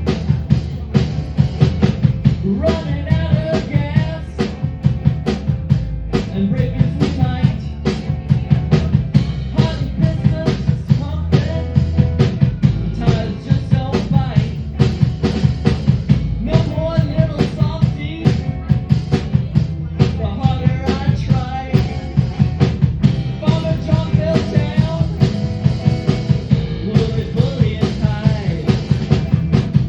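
Live rock band playing a song, with a drum kit keeping a steady beat under a singing voice.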